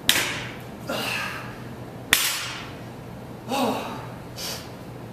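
A barbell loaded with bumper plates hits the floor twice, about two seconds apart, each a sharp slam with a fading ring. Between and after the drops come the athlete's heavy gasps and a grunt.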